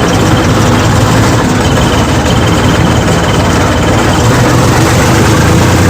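Sonalika tractor's diesel engine running steadily, with the turbo whistle fitted in its silencer giving a thin, high whistle that comes and goes over the engine noise.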